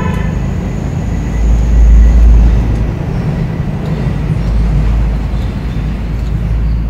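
Wind buffeting the microphone: a loud, deep rumble with no engine tone, swelling strongly about a second and a half in and again near the five-second mark.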